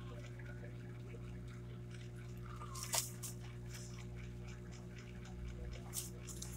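A steady low hum runs underneath, with two short sharp clicks, about three and six seconds in, as a hand handles sheets of paper.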